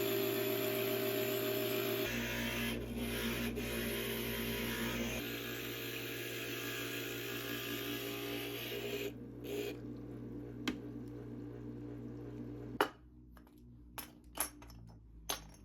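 Stained-glass grinder running, its motor humming steadily with a rasping hiss as glass is ground against the bit. About thirteen seconds in the grinding stops, followed by a few light clicks and taps.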